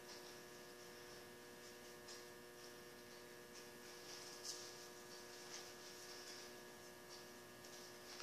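Near silence: a faint, steady electrical hum made of several tones, with a few faint ticks.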